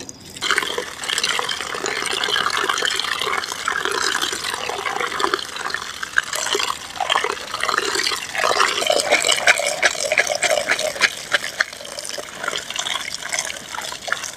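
A stream of water pouring and splashing as hands rinse food by hand, first over shredded banana heart in a metal tray, later in a woven bamboo basket. Frequent small splashes and sloshes come from the hands working the food under the water, thicker in the second half.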